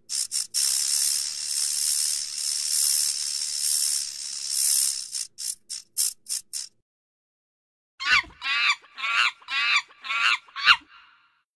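A horned desert viper's high, dry buzzing hiss, in a few short spurts, then steady for about five seconds, then breaking up into spurts again. After a short pause, near the end, a Barbary macaque gives a quick series of about six falling calls.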